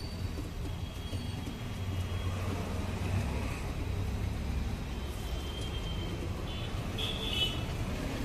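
Steady low rumble of street traffic, with hot oil sizzling in a wok as battered chicken pieces fry. A brief high-pitched sound comes near the end.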